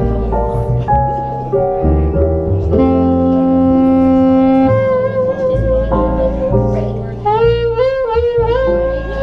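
Alto saxophone playing a slow jazz ballad melody over upright bass and keyboard chords. About three seconds in the saxophone settles on a long held note, which takes on a wide vibrato near the end.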